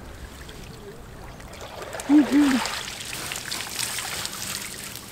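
Water trickling and dripping out of a whitebait scoop net as it is lifted full from the river. The patter swells about a second and a half in and eases near the end. A short two-note voice sound cuts in about two seconds in.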